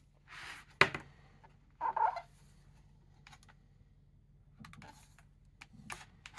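Handling noise: short rustles and scattered clicks, with a sharp tap about a second in and a louder rustle around two seconds in.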